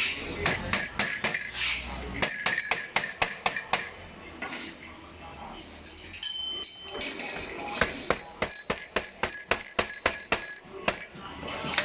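Quick runs of sharp metallic taps and clinks as aluminum rack parts are knocked together during assembly, in two bursts with a quieter pause between them.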